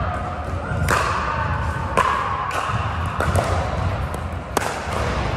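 Pickleball paddles hitting a hard plastic ball: several sharp pops about a second apart, echoing in a large indoor gym over a steady low rumble.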